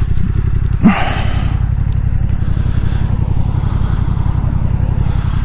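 Motorcycle engine idling steadily at a standstill, with a brief rush of noise about a second in.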